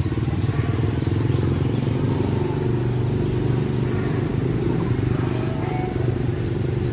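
An engine running steadily with an even, low drone.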